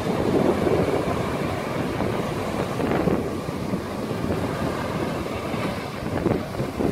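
Strong, gusting wind from Hurricane Matthew rushing and buffeting the microphone, with surf washing onto the shore underneath.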